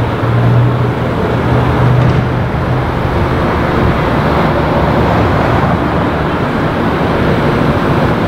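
A car driving along a city street: steady engine hum and road noise, with a low engine drone strongest in the first couple of seconds.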